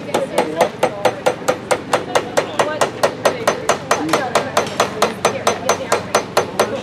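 Blacksmith's hammer striking red-hot iron on an anvil in a fast, even rhythm of about five blows a second.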